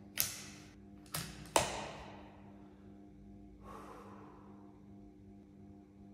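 A magazine clicked into a CZ 457 .22 rimfire bolt-action rifle, then the bolt worked with two sharp clicks under half a second apart to chamber a round; a soft rustle follows a couple of seconds later over a faint steady hum.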